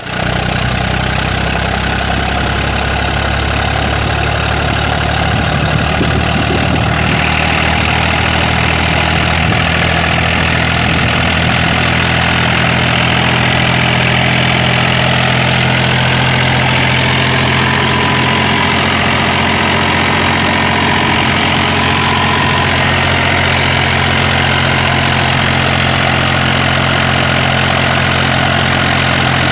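Mahindra tractor's diesel engine running steadily, with a brighter, harder note from about seven seconds in.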